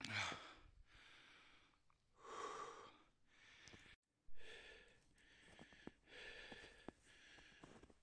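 A person breathing hard, with quiet heavy breaths about every two seconds, as from a hiker climbing through snow. The sound drops out briefly about halfway through.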